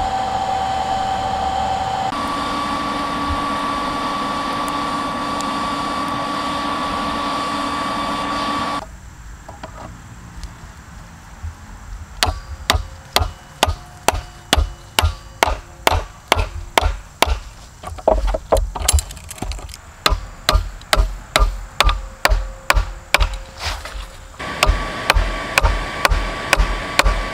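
An electric blower runs steadily, fanning the charcoal forge, with a held whine. After a break, a hammer strikes about twice a second on a hot half-inch pipe tee, forging it down around the square end of an auger bit held in a bench vise; the blower's steady noise returns under the blows near the end.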